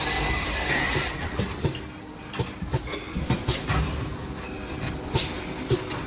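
Automatic straightening machine for drill bits running: a steady hum with a hiss in the first second, then a run of irregular clicks and knocks from the machine working the bit, one sharper knock about five seconds in.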